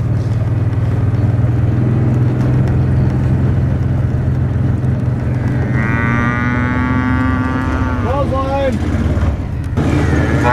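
Engine of an old utility vehicle running steadily. A cow moos once, a long call, a little past halfway.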